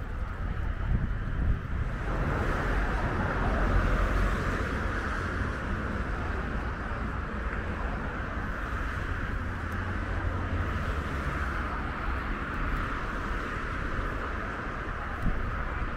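Wind buffeting the microphone outdoors, a steady uneven rumble under a continuous rushing noise, with one brief bump near the end.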